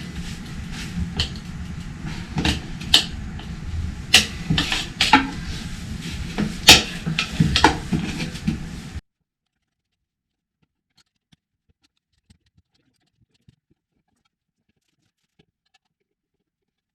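Steel tire spoons knocking and scraping against a motorcycle wheel rim as the tire is levered off, a string of sharp knocks over a low rumble. About nine seconds in the sound cuts off abruptly to near silence, with only a few faint ticks.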